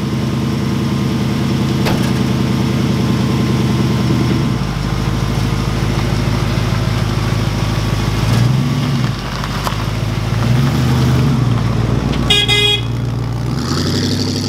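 Small-block Chevrolet V8 in a 1941 Ford pickup running steadily, its note changing about four seconds in, then rising twice briefly as the truck pulls away. A short horn toot sounds about twelve seconds in.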